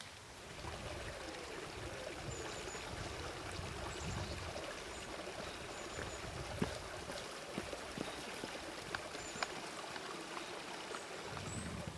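Shallow stream running over and around stepping stones, a steady trickling wash. It is dotted with a few faint clicks and some short, high chirps.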